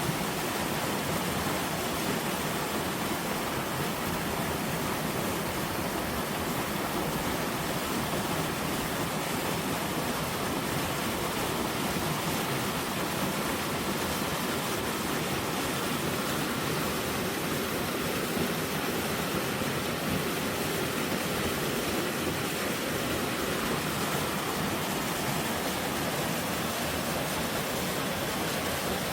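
Mountain stream of spring snowmelt rushing steadily.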